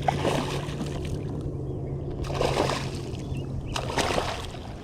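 Water splashing in three short bursts beside a kayak as a hooked flounder thrashes at the surface while being landed.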